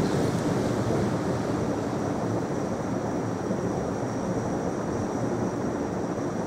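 A large prayer congregation held in prostration: a steady, soft mass of rustling and hushed murmuring in a big room, with a faint high steady tone.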